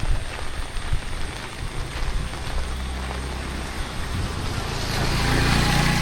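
A motor vehicle approaching along the road, its engine hum and tyre noise growing louder to a peak near the end.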